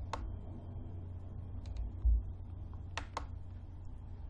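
A handful of short sharp clicks from computer mouse handling, one near the start and then two close pairs, with a dull low thump about two seconds in, over a steady low hum.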